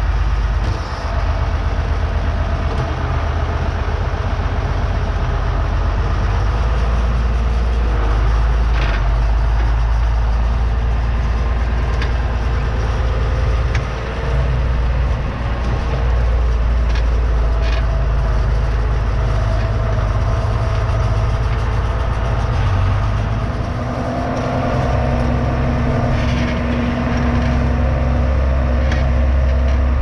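John Deere 6506 tractor engine running with a steady low rumble, heard from the back of the slurry tanker, with a few sharp knocks and rattles from the tanker. About three quarters of the way through, the engine note shifts to a new steady pitch.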